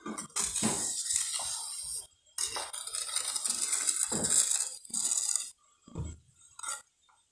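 Small metal trowel scraping across wet cement mortar as it is spread and levelled in a mould: two long scraping passes, then a few short strokes near the end.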